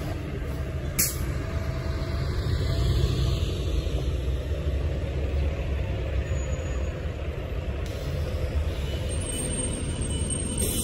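City bus running as it pulls in to the stop, a steady low engine rumble, with a short sharp hiss of air about a second in and a whine that falls in pitch over the next few seconds.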